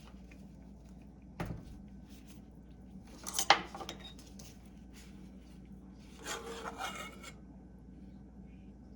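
Cutlery and dishware being handled: a dull knock about a second and a half in, a sharp clink about three and a half seconds in, then about a second of scraping near the seventh second.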